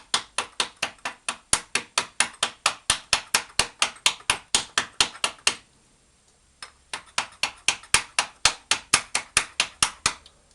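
Quick rhythmic scrubbing strokes, about five a second, on a metal suspension part being cleaned by hand before a rubber boot is fitted. They stop for about a second midway, then resume.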